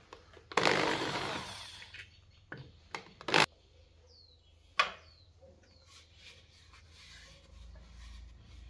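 Handheld power drill running for about a second and a half at the metal mounting on top of a turned wooden vessel, followed by a few sharp clicks and knocks, the loudest a little over three seconds in, as the metal parts are handled.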